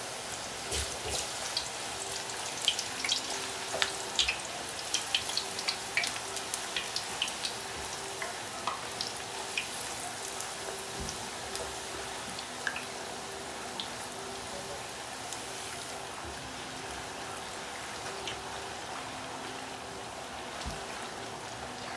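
Hot oil sizzling and crackling around a thin buñuelo dough round deep-frying in a skillet, with frequent sharp pops that thin out after about the first eight seconds.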